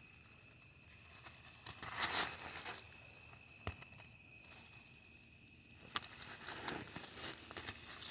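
A cricket chirping steadily, about two to three chirps a second, over a steady insect trill. Short rustling and scraping of soil and plants from digging by hand, the loudest about two seconds in, with a small click in the middle.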